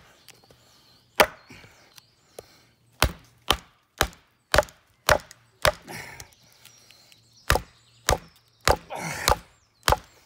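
Wooden baton knocking on the spine of a 1075 carbon-steel bushcraft knife, hammering the blade through a hard knot in a log round. About a dozen sharp knocks come in quick runs with short pauses, and a short rough scraping sound comes about nine seconds in.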